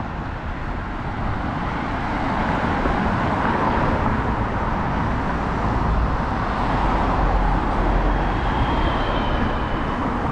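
Road traffic on a busy multi-lane avenue: tyre and engine noise of passing cars that swells a couple of seconds in, stays loud through the middle and eases a little near the end.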